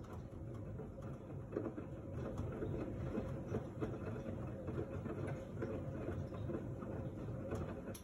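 LG F1289TD direct-drive front-loading washing machine tumbling a load of wet laundry: clothes and water sloshing and knocking in the turning drum, with many small irregular knocks over a low hum. The sound quietens right at the end.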